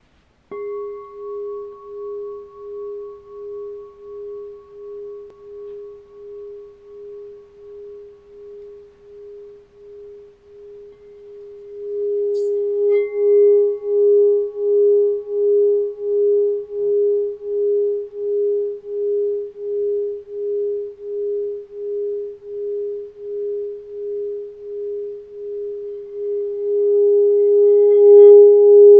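A 6-inch smoky crystal singing bowl tuned to G# sounding one pure tone with a slow, even wobble of a little over one pulse a second. It is struck about half a second in and rings down, is struck again, louder, around twelve seconds in, and swells near the end as the wand is held to the rim.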